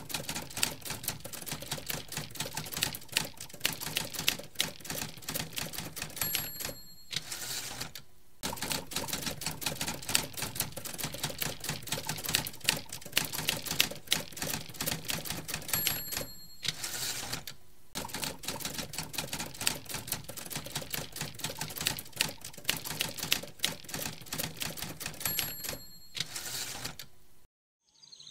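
Manual typewriter typing in rapid runs of key clacks. Three times, each run ends with the bell ding and a carriage-return swish, followed by a short pause.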